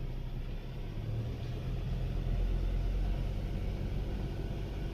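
Vehicle moving slowly: a steady low engine and road rumble.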